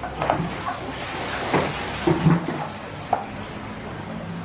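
Wooden hand slicer cutting garlic cloves: the wooden pusher block scrapes back and forth over the blade and knocks against the board a few times at irregular intervals.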